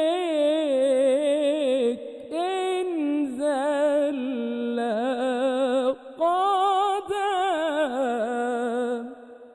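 A man's solo voice singing an unaccompanied Islamic ibtihal, a devotional supplication, in long melismatic phrases with fast wavering ornaments. He takes short breaths about two seconds and six seconds in, and the last held note fades out near the end.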